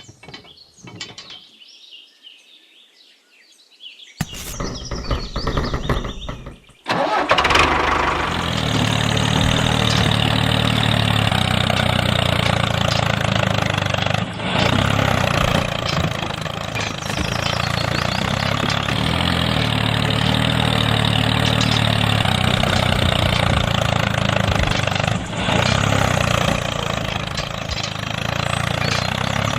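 A small engine starts abruptly about seven seconds in and then keeps running steadily at an even idle.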